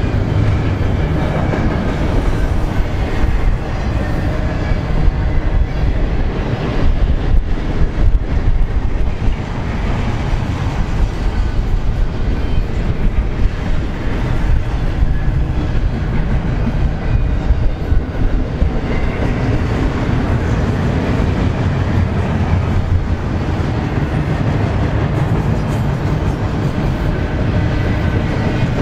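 Double-stack intermodal container train passing close by: its loaded well cars rolling past, a loud, steady rumble of steel wheels on the rails.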